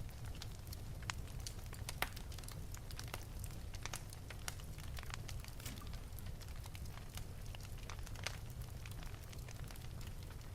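Wood fire in an open fireplace crackling, with irregular sharp pops and snaps over a steady low rumble of the flames; one louder pop about two seconds in.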